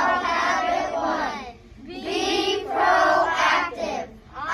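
Children singing or chanting together in two short phrases, with a brief pause between them.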